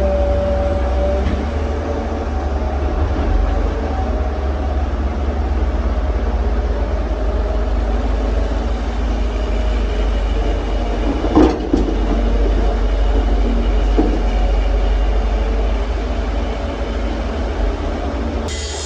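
Heavy diesel engine of a wheel excavator running steadily with a deep rumble, with a sharp metallic clank about halfway through and a couple of lighter knocks after it, typical of concrete slab and bucket striking steel while loading.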